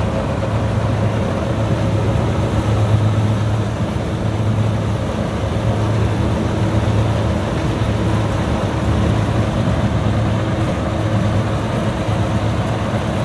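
Kubota DC60 combine harvester running steadily, its diesel engine and threshing machinery giving a constant low engine note with a mechanical din over it.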